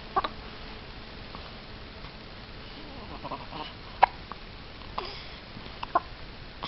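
A baby hiccuping: a few short, sharp hiccups at uneven intervals, the loudest about four seconds in.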